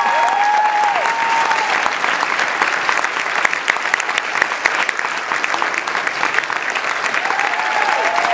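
Congregation applauding steadily, a dense patter of many hands clapping. A drawn-out cheer rises over it in the first second or so, and more cheering comes near the end.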